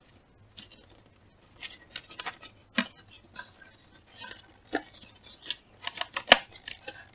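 Paper plates and a cardboard tube being handled, with scattered light clicks and rustles as a plastic hand stapler is positioned, and one sharp click near the end.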